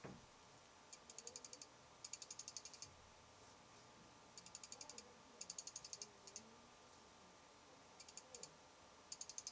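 Fuji X-Pro1 lens chatter: the aperture blades click rapidly as they readjust to changing light while the camera is tilted, in faint runs of about ten clicks a second, each run lasting up to a second, with short pauses between.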